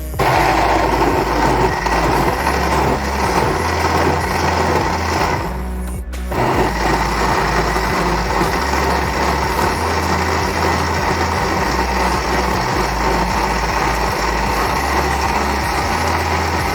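Electric kitchen blender running at full speed, its motor whirring as it churns water with chopped lemon and garlic. It stops briefly about six seconds in, then starts again.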